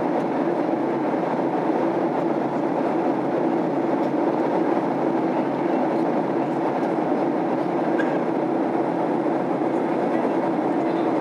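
Steady cabin noise of a Boeing 767-300 airliner in flight: an unbroken rush of engine and airflow noise with a low steady hum, heard from inside the passenger cabin.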